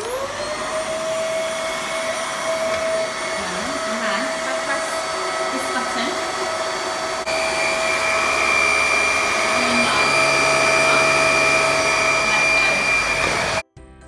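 VAX Air Stretch Pet upright bagless vacuum cleaner switched on, its motor whining up to speed and then running steadily. About seven seconds in it gets louder with an added high whine, and it cuts off suddenly near the end.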